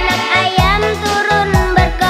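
Background music: a bright melody over a bass drum beat.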